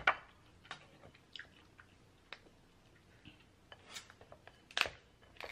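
King crab leg shell being snipped with scissors and pulled open by hand: scattered sharp clicks and crackles, the loudest right at the start and another just before the end.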